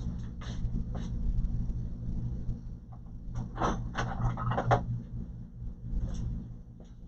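Handling noises from working on an opened all-in-one computer: short knocks and a longer stretch of scraping and rustling about three and a half seconds in, over a steady low hum.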